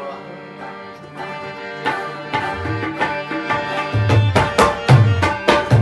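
Rabab playing a plucked melody, with tabla strokes coming in about two seconds in and growing louder, deep bass-drum booms near the end.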